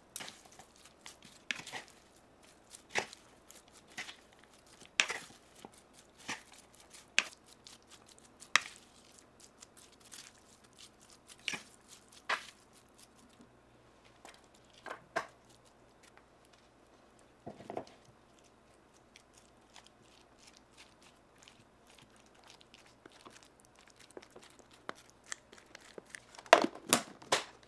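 Hands-on vegetable preparation: crisp cracks and crunches at irregular intervals about a second apart, a quieter stretch after a duller knock midway, then a quick flurry of louder cracks near the end.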